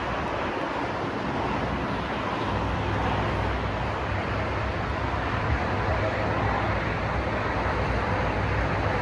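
Steady road traffic noise from a busy multi-lane highway below, a continuous wash of passing cars, with a low rumble that grows from a couple of seconds in.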